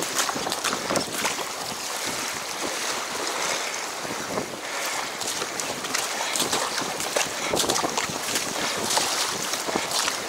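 Strong wind buffeting the microphone, with choppy water splashing and slapping against a Mako6 surfski's hull as it runs downwind through whitecaps, in an irregular stream of sharp splashes.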